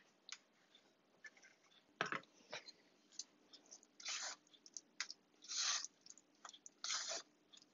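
Wooden spoon stirring thick, flour-thickened apple pie filling in a saucepan: a sharp knock about two seconds in, then three short stirring strokes about a second and a half apart.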